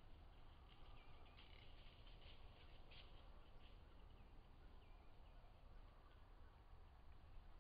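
Near-silent woodland ambience: a few faint, scattered small-bird chirps and some brief faint ticks in the first half, over a low steady hum.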